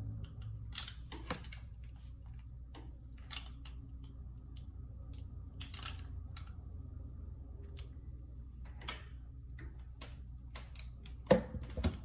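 Soft rustling and light clicks of hair being wrapped around a curling wand and handled, over a steady low hum, with a sharper click near the end.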